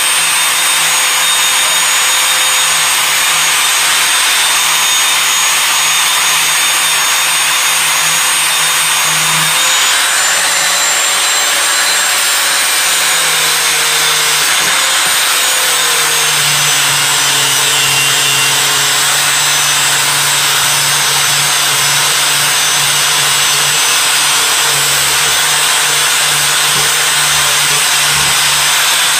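Angle grinder with a flap disc grinding rust and pitting off a steel hatchet head: a steady whine over a grinding hiss. The motor's pitch wavers and dips for a few seconds about halfway through as the disc is worked against the metal.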